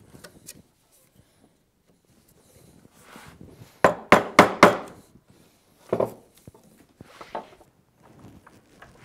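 Sharp knocks of a narrow chisel being worked into wood: four quick knocks about four seconds in, then two more spaced about a second apart.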